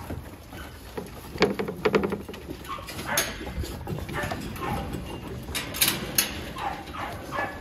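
American Bully puppies giving short high whimpering cries in a kennel pen, with several sharp clacks about one and a half to two seconds in and again near six seconds.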